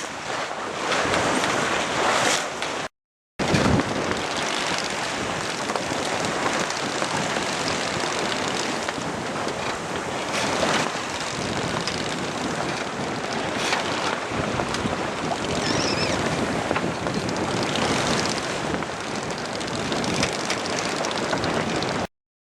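Wind blasting across the microphone and sea rushing past a sailing yacht's hull, a steady loud rush that drops out completely for a moment about three seconds in.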